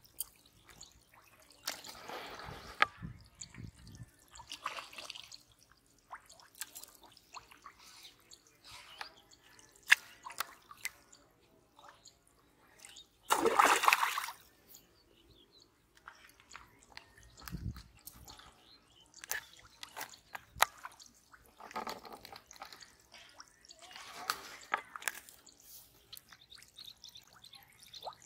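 Water splashing and dripping in short, irregular bursts, with sharp clicks between them and one longer, louder splash about halfway through.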